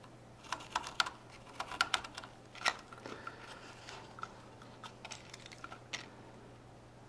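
Irregular small clicks and taps of a pen dotting fin marks onto the Estes 220 Swift's paper body tube, with the tube turned in the fingers against a wooden tabletop. The clicks come thickest in the first three seconds and thin out after.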